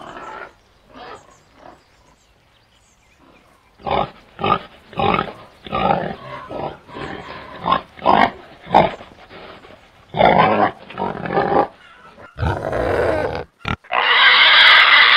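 Pigs calling in a series of short grunts and squeals, about two a second. Longer, louder squeals follow near the end.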